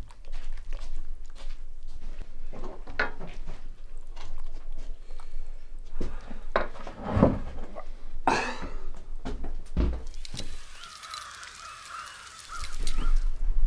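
Harsh bird calls, most clearly in a stretch about two-thirds of the way in, with scattered knocks and clatter throughout.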